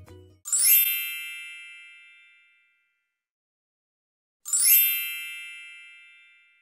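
Two bright chime-like ding sound effects about four seconds apart, each opening with a quick upward shimmer and ringing out, fading over about two seconds.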